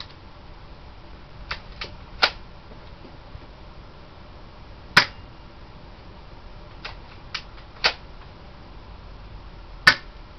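Airsoft shotgun firing four sharp shots, each two to three seconds apart, with fainter clicks before some of them.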